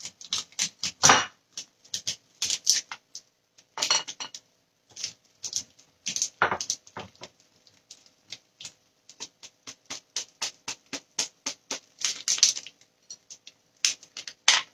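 A block of pepper jack cheese being grated on a metal box grater: rasping scrape strokes, a few longer ones at first, then quicker and more even, about four a second, in the second half.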